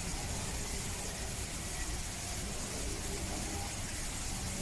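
Steady background hiss with faint, indistinct voices of people talking.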